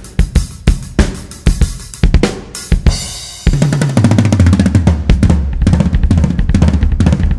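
Instrumental music led by a drum kit: sparse, punchy kick and snare hits at first, then a little past halfway the track suddenly fills out with deep sustained bass notes under fast, dense drumming.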